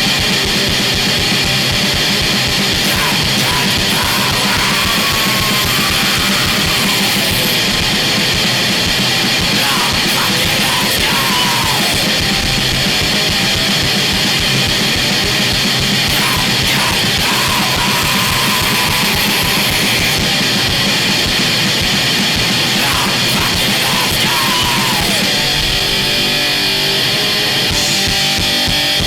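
Loud, dense wall of chaotic noise music: heavily distorted guitar and drums in a steady mass, with short whining pitch glides cutting through several times.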